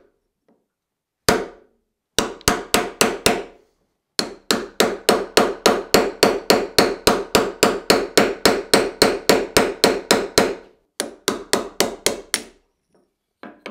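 Hammer blows on a steel punch, driving the old wooden handle out of the eye of a ball-peen hammer head. A single blow, a short run of strikes, then a long steady run at about four blows a second, and a few more near the end.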